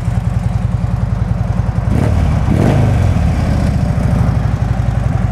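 Harley-Davidson Street Glide V-twin idling through aftermarket mufflers with a deep rumble, picking up briefly in speed and loudness about two seconds in. The engine is running smoothly and is warmed up.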